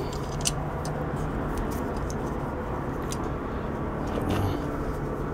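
Steady low mechanical hum in the background, with a few light clicks of the curling iron's plastic handle cover being handled, the sharpest about half a second in.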